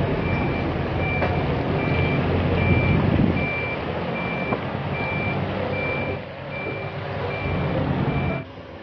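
Heavy-machine warning beeper sounding as evenly spaced high beeps over a diesel engine running with a low rumble; both cut off shortly before the end.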